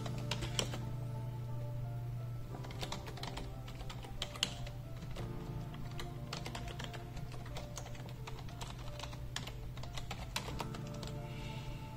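Typing on a computer keyboard: irregular clicks of keys being pressed one after another, with background music underneath.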